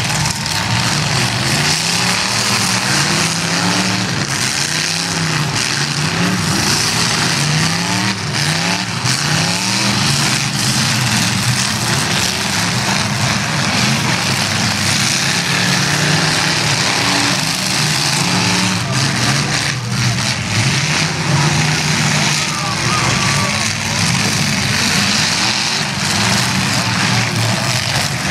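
Several derby cars' engines revving and running at once, their pitches rising and falling over each other, with occasional crash impacts from cars colliding.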